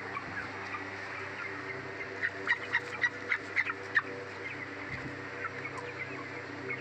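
A flock of young broiler chickens, about 20 days old, peeping in short high calls, with a run of louder calls between about two and four seconds in, over a steady low hum.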